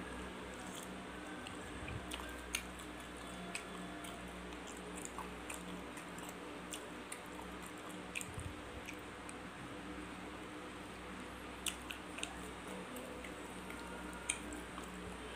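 Chewing on fried beef meatballs, with scattered sharp clicks of a metal knife and fork against the plate, over a steady low hum.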